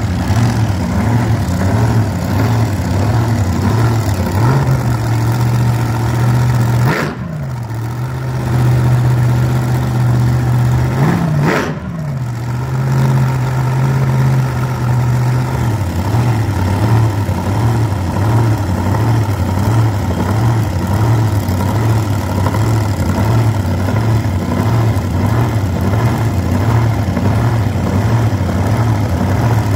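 Vintage front-engine dragster's engine idling loudly with a lumpy, pulsing beat while the car rolls back slowly. In the middle the note steadies and rises for several seconds, dipping briefly twice, then falls back to the loping idle.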